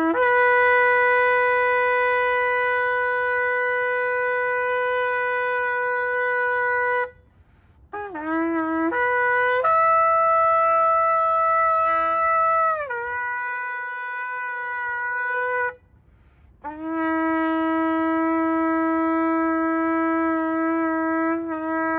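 Shofar blown in long sustained blasts: one steady note of about seven seconds, a few short broken notes, a higher note that drops in pitch partway through, then a long, lower note.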